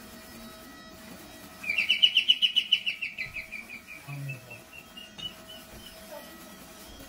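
A bird's rapid chirping trill, about ten notes a second, loud at first and then fading away over about three seconds.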